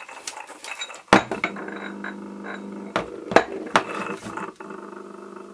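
Grundfos heating circulation pump running with a steady hum, its loose rotor bearing shimmed with a copper wire-end ferrule, so the rattle is much reduced. A few sharp clicks and clinks sound over the hum, one as the hum starts about a second in and a cluster three to four seconds in.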